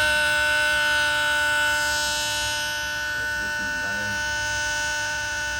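Homemade 12-volt bicycle siren sounding a steady electronic tone through its small speaker, slowly getting quieter as its supply voltage is turned down to simulate a low battery.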